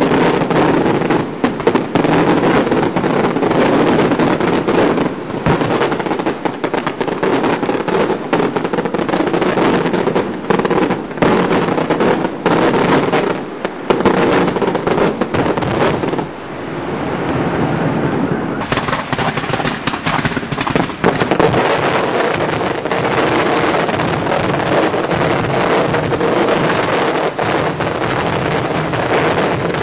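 Daylight fireworks going off in a rapid, continuous barrage of overlapping bangs and crackles, easing briefly a little past halfway before building up again.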